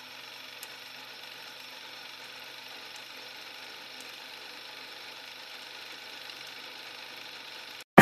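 Film projector sound effect for a countdown leader: a quiet, steady mechanical whirr with a few faint ticks, cutting off abruptly just before the end.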